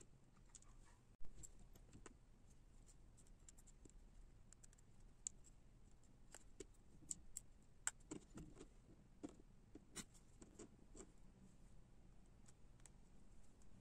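Faint scattered clicks and light metallic ticks of tiny truck screws, nuts and a fingerboard truck being handled and fitted to a wooden fingerboard deck, busiest in the second half, with one sharper click about a second in.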